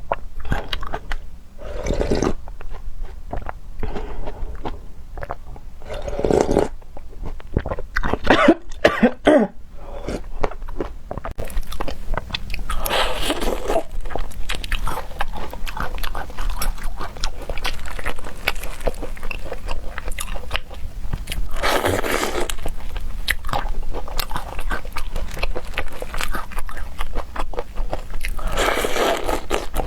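Close-miked mouth sounds of a person eating seafood: steady chewing with many small wet clicks, and several louder crunching bites spread through.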